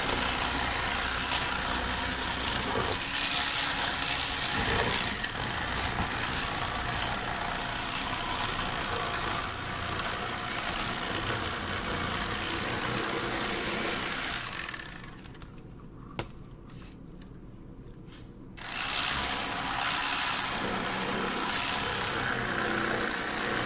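Cordless Rapala electric fillet knife running, its motor buzzing steadily as it cuts the second fillet off a crappie. It stops for about four seconds past the middle, with a single click in the gap, then runs again.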